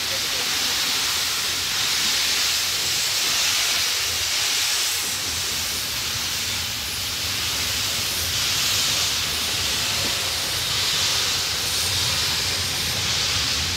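The Royal Scot steam locomotive stands hissing steam, a steady hiss that swells and eases every few seconds.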